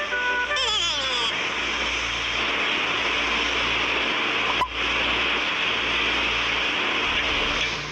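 Steady static-like hiss, with one sharp click about halfway through. Just before the hiss sets in, a few tones slide down in pitch as if slowing to a stop.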